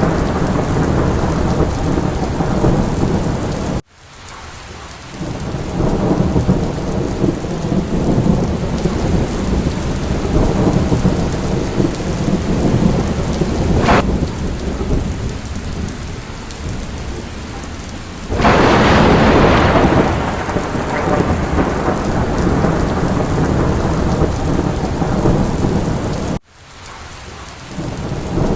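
Steady rain with rumbling thunder. There is a sharp crack about halfway through and a louder burst about two-thirds in. Twice the sound cuts out abruptly and then fades back in.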